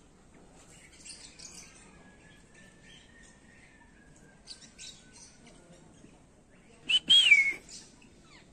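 Birds chirping in short scattered bursts, with one loud harsh call about seven seconds in.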